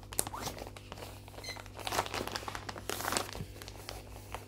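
Rustling of cross-stitch projects being handled and swapped, irregular, with a few sharp crackles scattered through it.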